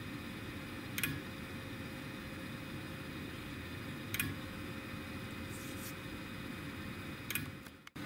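Hosiden small micro switch on a delta 3D printer's Z probe clicking three times, about three seconds apart, each click being the lever touching the bed on a probe. A steady machine hum runs underneath, and the sound briefly cuts out just before the end.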